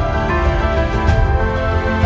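Background music: sustained pitched tones over a steady deep bass, with a soft percussive hit about a second in.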